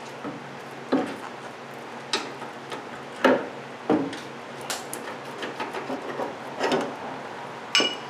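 A steering rack and pinion assembly being worked loose and shifted out of its mounts, giving several sharp, irregularly spaced metal clunks and knocks with some rubbing and scraping in between.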